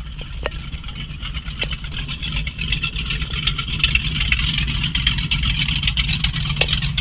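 Camera drone's propellers whirring steadily, a high buzz over a low rumble, growing somewhat louder as it goes.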